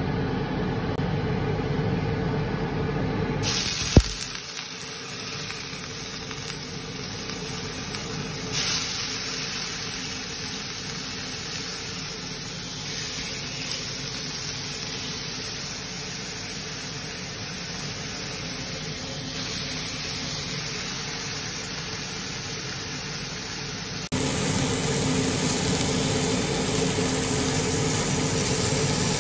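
Hoki fish fillets sizzling on a hot oiled grill pan: a steady hiss, with a single sharp click about four seconds in.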